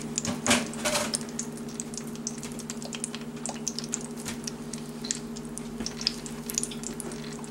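Corn on the cob frying in oil in a skillet, the oil crackling and popping in scattered small pops, over a steady low hum.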